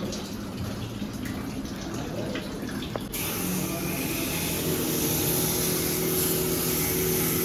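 Water splashing and dripping, then about three seconds in a jet-wash pressure pump switches on: a steady motor hum and a loud hiss of spraying water.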